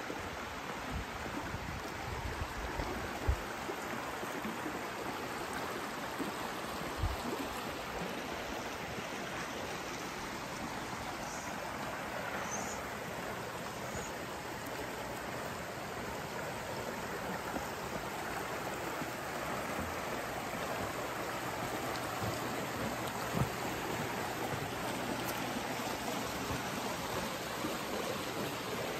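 Shallow river running over flat bedrock and rocks: a steady rushing of water, with a few dull thumps.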